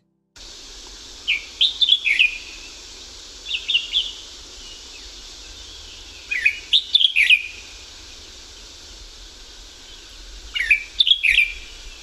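Red-whiskered bulbul calling: four short phrases of quick, sweet, thin whistled notes that rise and fall, spaced a few seconds apart, over the steady faint hiss of the recording.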